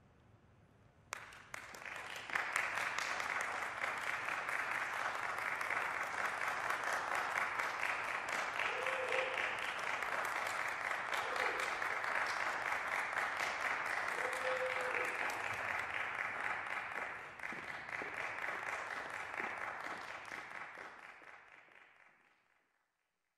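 Applause, starting suddenly about a second in as the last song ends, holding steady, then thinning and fading away near the end.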